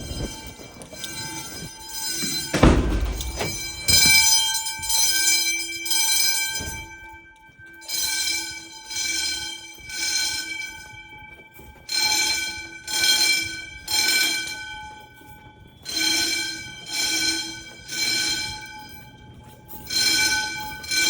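Wheelock 10-inch fire alarm bells ringing in the temporal-three evacuation pattern: three rings of about a second each, a short pause, and the group repeats. A single loud thump comes about two and a half seconds in.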